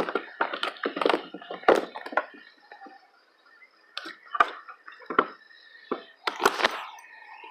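A freshly caught rainbow trout flopping and thrashing while being grabbed, making irregular wet slaps, splashes and knocks. They come in a dense flurry over the first two seconds and again in scattered bursts near the end.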